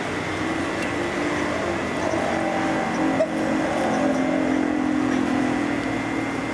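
Steady street traffic noise: the hum of vehicle engines, rising and falling slowly, with a brief knock about three seconds in.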